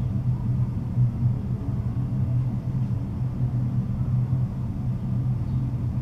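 A steady low rumble with no breaks or distinct events.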